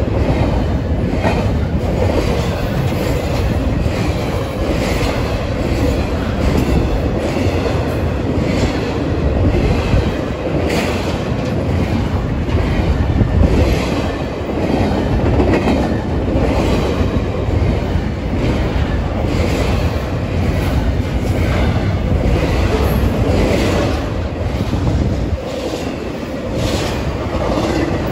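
Norfolk Southern freight train rolling past on the near track, its cars' wheels clicking over the rail joints in a steady, loud rumble.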